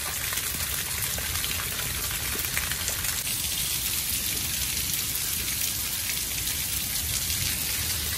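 Steady rain pattering on the nylon fly of a lightweight two-person tent (Sierra Designs Full Moon 2), heard from inside during a thunderstorm.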